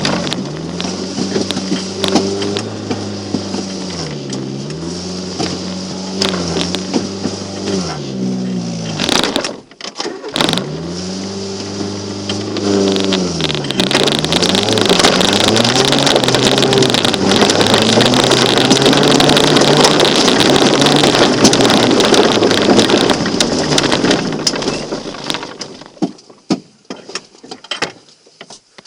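Mk2 Volkswagen Golf 1.3's four-cylinder petrol engine revving up and down over and over, cutting out briefly about ten seconds in. From about fourteen seconds a loud, steady rushing noise covers the engine for around ten seconds, then fades to scattered clicks near the end.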